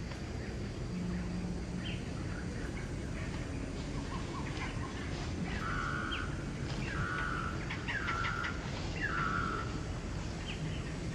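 A bird calling: four short, even-pitched notes about a second apart in the second half, with a few fainter chirps before them, over a steady low outdoor rumble.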